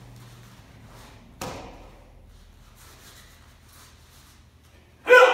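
A single sharp thud about a second and a half in. Near the end comes a sudden loud, held martial-arts shout (kihap), the yell that opens a one-step sparring exchange.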